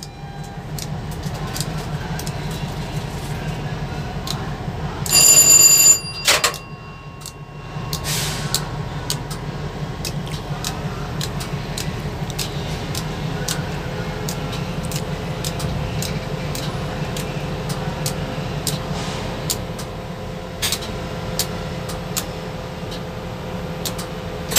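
Circuit breakers on a WDP4D diesel locomotive's cab electrical panel being clicked on one by one, over a steady low hum. About five seconds in, a loud electronic alarm tone sounds for about a second.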